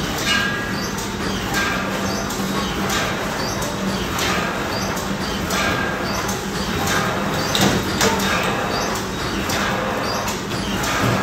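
Packaging-line machinery running: a steady hum with a short mechanical clack and brief ringing tone repeating about every second and a quarter.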